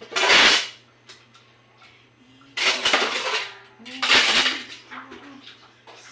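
Dishes being washed by hand at a sink: three loud, short bursts of splashing water and clattering dishes, one at the start, one near three seconds and one just after four seconds.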